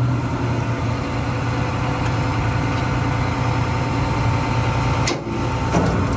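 John Deere 290G excavator's diesel engine idling steadily, close by, with a brief knock about five seconds in.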